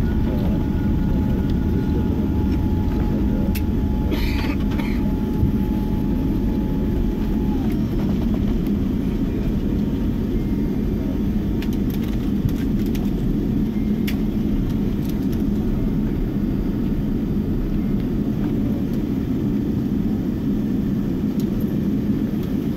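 Cabin noise inside a Boeing 787-9 rolling down the runway after touchdown: a steady low rumble from the wheels on the runway and the engines. A thin steady whine drops slightly in pitch and stops about seven and a half seconds in.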